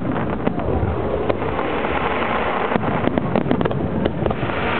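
Aerial fireworks display heard from a distance: a dense run of crackles and bursts over a continuous rumbling haze, busiest around three seconds in.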